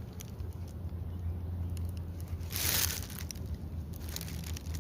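Handling noise: scattered small clicks and one brief crinkling rustle about two and a half seconds in, over a steady low hum.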